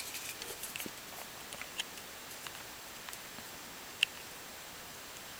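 Faint scattered clicks and light handling noise as alligator clips are clipped onto the metal contacts of a small plastic box, with one sharper click about four seconds in.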